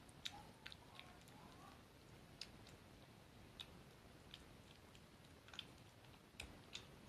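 Tabby kitten eating wet tuna cat food from a plastic bowl: faint, irregular wet smacking and clicking chews, about one or two a second.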